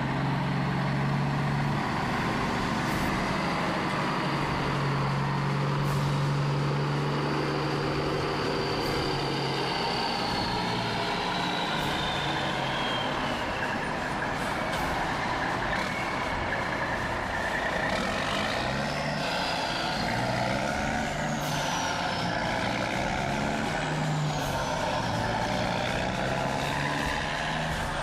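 Volvo FH 480 semi-truck's diesel engine running steadily as the tractor and flatbed trailer drive slowly and pull up. A high whine drops in pitch around the middle, and more short falling whines follow later.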